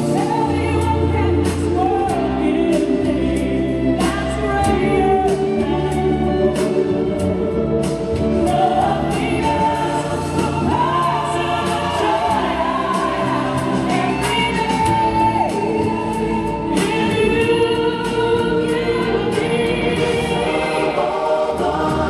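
Gospel choir singing over a band with bass and drums.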